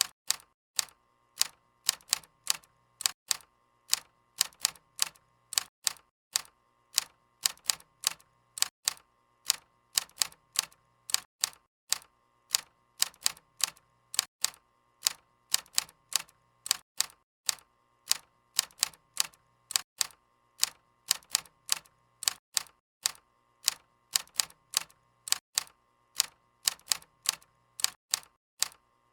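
Typewriter keys striking in quick, uneven runs of sharp clicks, about three or four a second, with short pauses between runs.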